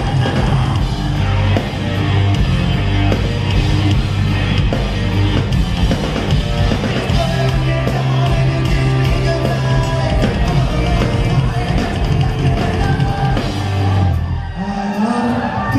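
Live rock band playing loud: electric guitar, bass guitar and drum kit, with sung vocals, heard from the crowd. The band drops back briefly near the end.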